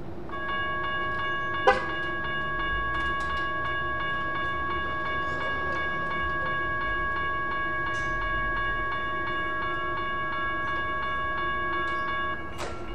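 Railroad crossing signal bell ringing as one continuous clanging tone for about twelve seconds, then cutting off near the end as a bell of different pitch carries on. A single sharp clank stands out a couple of seconds in.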